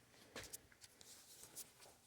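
Near silence: room tone with a few faint clicks, the most noticeable about half a second in.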